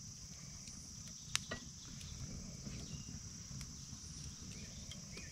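Steady high insect chorus, with a wood campfire crackling in scattered faint clicks and one sharper pop about a second and a half in.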